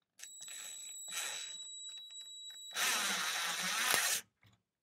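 Cordless drill/driver driving a screw into a plug cap in a wooden chair's side, so that the screw pushes the cap out. It first runs with a high, steady whine for about two and a half seconds, then runs louder for about a second and a half and stops suddenly.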